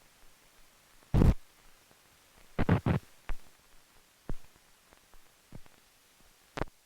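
Scattered clicks and pops from an old film's soundtrack over faint hiss, with a loud pop about a second in and a quick run of three near the three-second mark.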